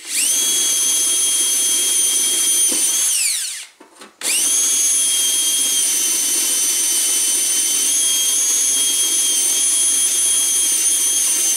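Power drill boring into a vehicle's sheet-metal front fender, running at a steady high whine. About three seconds in it winds down with a falling pitch and stops briefly, then starts again and runs steadily.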